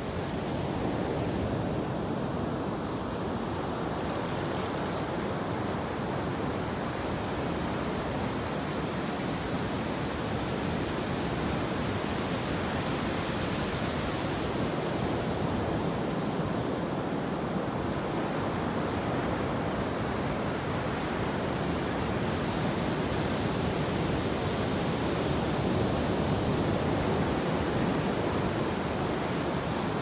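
Ocean surf: a steady rush of breaking waves and shallow wash running up the sand, swelling slightly in level now and then.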